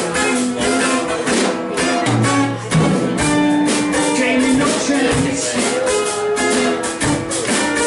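Live band music: an acoustic guitar strummed with a drum kit keeping a steady beat, in a passage without singing.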